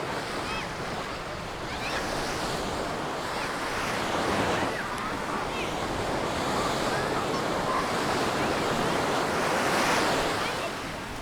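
Small Mediterranean waves breaking and washing up a sandy beach, the surf swelling and falling away, loudest about four seconds in and again near the end. Wind buffets the microphone.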